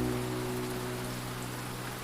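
A low piano chord dying away slowly over steady rain.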